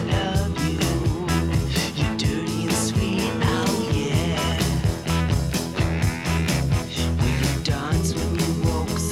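Background rock music with guitar over a steady, even drum beat.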